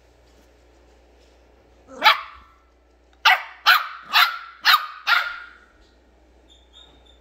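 Ten-week-old Yorkshire terrier puppy barking, high-pitched: a single bark about two seconds in, then five quick barks in a row, about two a second.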